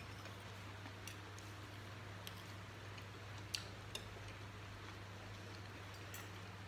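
A few light clicks of metal cutlery against a plate, spread out, the sharpest about three and a half seconds in, over a steady low hum.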